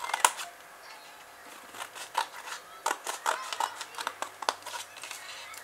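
Scissors snipping through two layers of folded thin card (about 200-micron A4): a string of short, crisp cuts at an irregular pace, the sharpest about a quarter of a second in.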